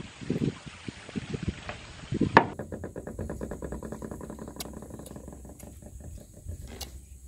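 Fingers squeezing and mixing shredded meat in wet chilli rica sambal in a stone mortar: a quick run of small squishing strokes that fades after a few seconds. Before that, up to a click about two seconds in, a man chewing a mouthful of rice.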